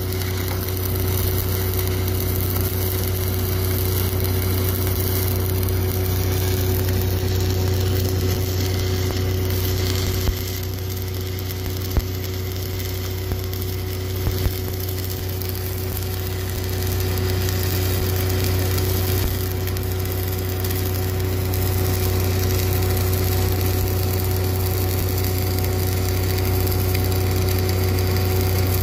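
Stick welding on steel pipe: the electrode arc burning with a steady crackling hiss over the constant drone of an engine-driven rig welder running. A few short sharp ticks around the middle.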